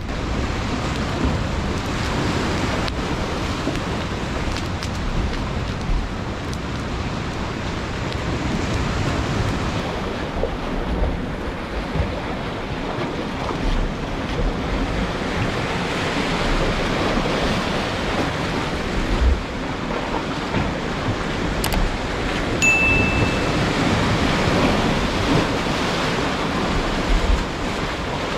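Sea waves washing onto the shore in a steady, swelling rush, with wind gusting against the microphone.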